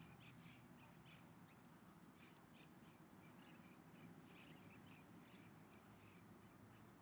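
Faint chorus of many birds calling, short chirps overlapping several times a second, over a steady low rumble.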